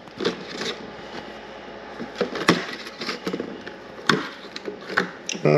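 Plastic flip-top lids of spice shaker jars being snapped open and the jars handled on a wooden cutting board: a series of sharp clicks and knocks, the loudest about two and a half seconds in.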